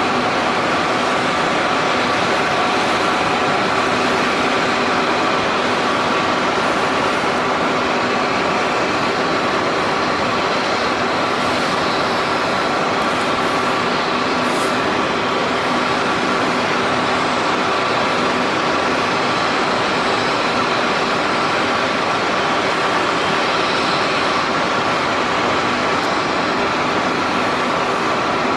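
Long-range fog cannon (mist cannon dust suppressor) running: its large fan blowing out a plume of water mist, a steady whir with a few held tones over a hiss.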